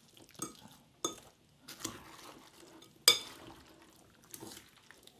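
Metal fork stirring wet baked beans, cubed corned beef and chopped onion in a glass mixing bowl. Sharp clinks of the fork against the glass, the loudest about three seconds in, are set among a soft, moist stirring noise.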